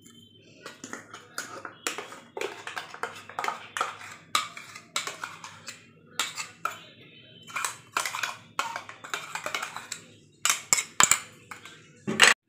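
Metal spoon scraping and tapping against a steel bowl and a ceramic bowl as wet spice paste is emptied out: a run of irregular clinks and scrapes, with a sharper knock near the end.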